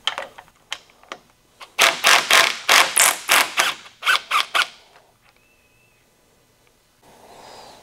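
Impact wrench with a thin-wall 18 mm socket hammering in a run of short, loud bursts, about three a second for some three seconds, to break loose and unscrew the 18 mm nut on a BMW VANOS unit.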